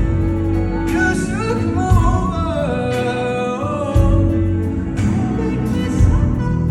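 Live pop song: a man's sung melody over a band with steady bass and a drum hit about once a second.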